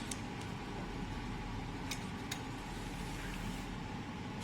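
A few light metallic clicks of small metal injector parts being handled, two of them close together about two seconds in, over a steady low background hum.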